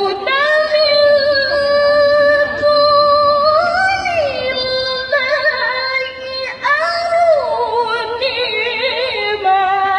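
A woman reciting the Quran in the melodic tilawah style: one voice holding long, ornamented notes with a quavering vibrato, sliding up and down between phrases.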